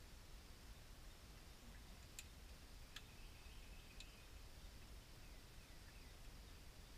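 Near silence: faint outdoor ambience with a steady high hiss, three faint clicks about a second apart a couple of seconds in, and a faint thin chirp among them.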